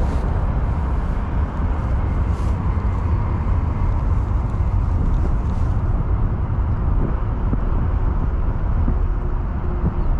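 Steady, loud low-pitched outdoor rumble with no clear events in it.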